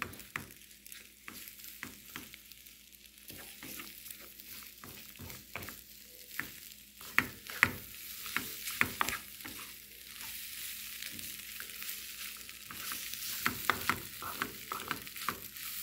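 Spinach and scrambled eggs sizzling in a frying pan while a spatula stirs, scraping and knocking against the pan in irregular strokes that come thicker near the end.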